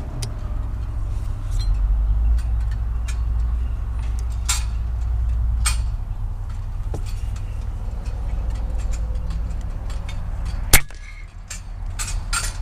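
A single shot from a shrouded air rifle firing a .22 slug, one sharp crack about eleven seconds in, over a steady low rumble.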